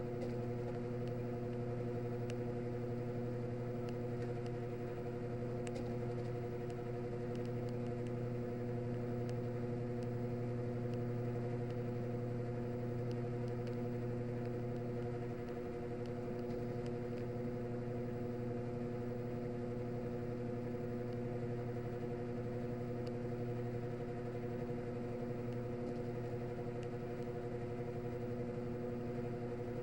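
Washing machine drain running with a steady hum and faint scattered ticks, the noise its owner calls snoring.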